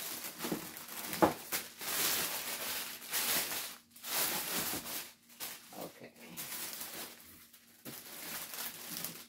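Large clear plastic shrink-wrap bag rustling and crinkling in irregular bursts as it is pulled down over a gift basket.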